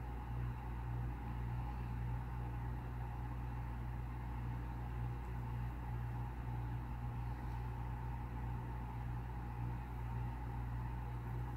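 Steady low hum with a faint even hiss: background noise of a room, like a fan or appliance running, unchanging throughout.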